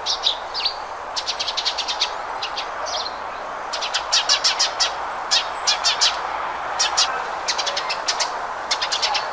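House sparrow chirping: runs of short, rapid chirps that stop and start again several times, over a steady background hiss.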